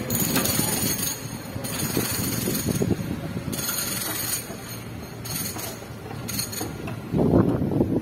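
Road traffic: cars driving past close by, a steady rush of engine and tyre noise that grows louder near the end as another car comes up.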